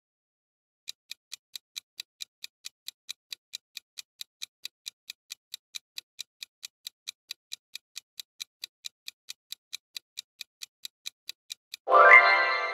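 Countdown-timer ticking sound effect, a steady run of quick clock-like ticks at about four a second. Near the end the ticking stops and a loud ringing chime with several tones sounds and fades, marking that the time is up.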